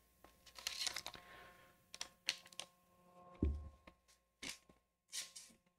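Foil sachet crinkling and tearing as it is opened by gloved hands, in several short crackling bursts, with one low thump about three and a half seconds in.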